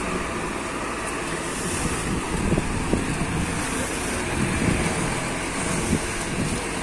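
Tour bus engine running with a steady low rumble as the bus moves through a car park.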